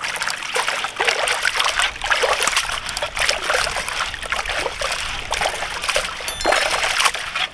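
Goat head pieces and whole spices cooking in a pot: a dense, steady crackling sizzle made of many small pops.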